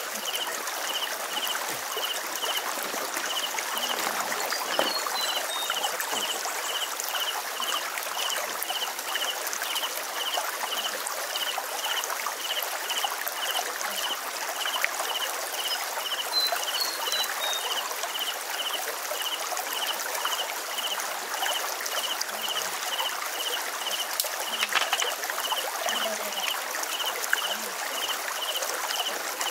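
Shallow stream running over rocks, a steady trickle, with a high chirp repeating about twice a second throughout and a short falling chirp twice.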